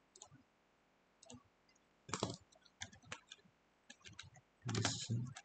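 Computer keyboard typing and mouse clicks: scattered sharp key and button clicks, with a louder clatter of keystrokes about a second before the end.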